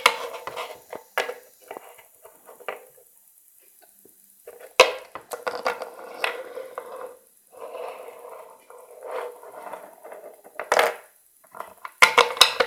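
Small plastic toys being handled and moved about by hand, with scattered clicks and knocks and some rustling as the pieces are picked up and set down.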